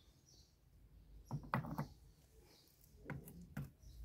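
Handling noise on a wooden tabletop: two short bursts of light knocks and clatter, about a second and a half in and again about three seconds in, as a magnifying glass and rock specimens are set down. Faint bird chirps in the background.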